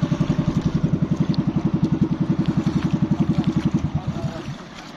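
Small boat's engine running with a fast, even putter of about a dozen beats a second, then dying away and stopping about four seconds in, leaving only a quiet wash.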